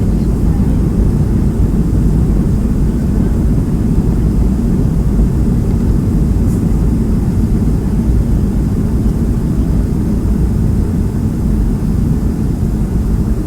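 Steady low rumble of a Boeing 757's engines and airflow, heard from inside the passenger cabin on the approach to landing.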